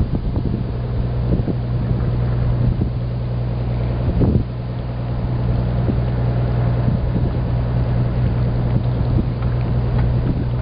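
Boat motor running steadily at low speed, a constant low hum, with wind buffeting the microphone.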